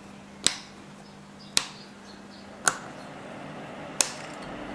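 Toggle switches on a control box flipped on one after another: four sharp clicks about a second apart, over a low steady hum that changes pitch after the third click.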